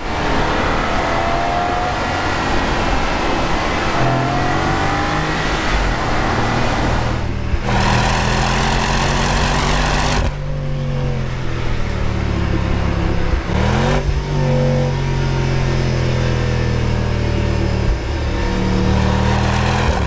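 Dinan-tuned BMW M550i's twin-turbo V8 running hard through its Dinan exhaust, pulling through the gears with the revs rising and dropping at each shift.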